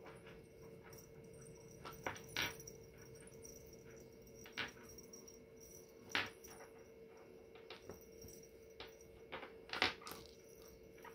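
Handling noise: a few light clicks and small rattles as hands work a string of mini Christmas light bulbs and a beaded bracelet against a sweater, the sharpest click near the end, over a faint steady hum.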